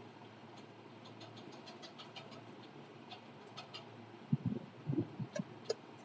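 Small objects being handled: scattered light clicks and ticks, then a short run of soft knocks and bumps about four and a half seconds in.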